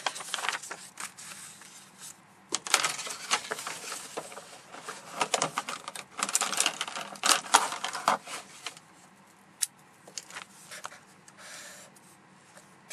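A sheet of paper being handled on a desk: rustling and scraping with a quick run of taps and scratches, busiest in the middle and easing off near the end.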